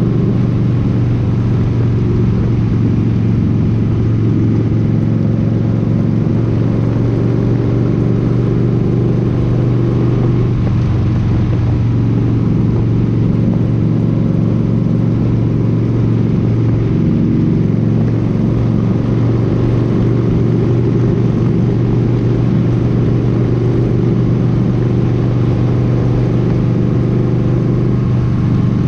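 Cruiser motorcycle engine running at steady highway speed, a constant low engine note with wind and road noise over it.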